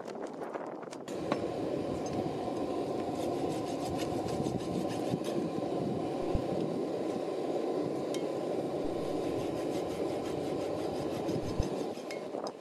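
Steady metal-on-metal scraping of a hand tool, such as a file, worked over a forged steel piece held in tongs on the anvil. It starts suddenly about a second in and stops shortly before the end.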